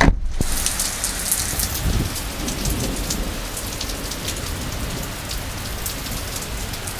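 Heavy rain pouring down steadily in a thunderstorm, a dense hiss with many sharp individual drop hits.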